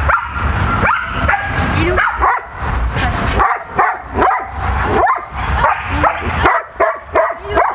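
A dog barking and yipping in quick short calls, about two to three a second, without pause.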